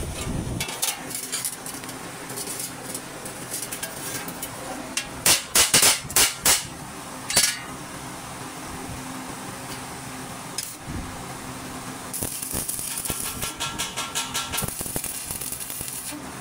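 Hammer blows ringing on a rolled sheet-steel cylinder as it is shaped round: a quick run of about five loud strikes a little past the middle, then one more. Near the end a MIG welder's arc crackles steadily as the seam is welded.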